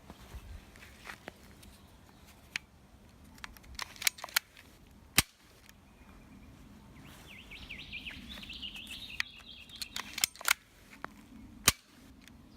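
Lever-action toy revolver blaster firing foam darts: two loud sharp snaps, one about five seconds in and one near the end, with lighter clicks of the lever and loading before each.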